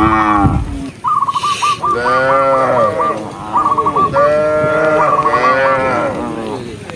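Cattle mooing: three long, loud moos in a row, one after another, with a higher stuttering call repeating over them.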